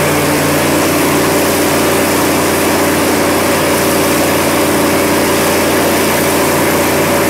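Cummins VTA-28 diesel engine of a 600 kW generator set running steadily at constant speed. It is a V12 turbocharged aftercooled engine.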